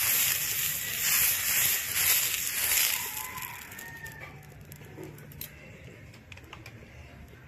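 Oil sizzling and hissing on a hot tawa as it is brushed across the griddle. The hiss is loudest for the first three seconds, then dies down to scattered crackles.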